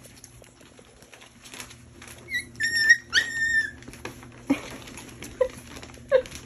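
Young puppies whining: a few high-pitched squeals about two to four seconds in, then two short lower squeaks near the end.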